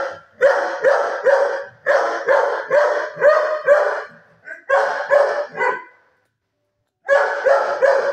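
A dog barking in quick runs of barks, about three a second, falling quiet for about a second before starting again near the end.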